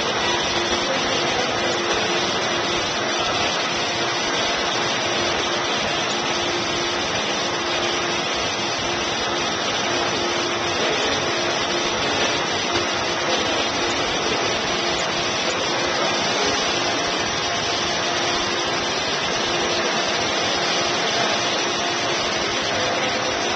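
Steady rushing noise of circulating water with a constant machine hum from the pool's pump.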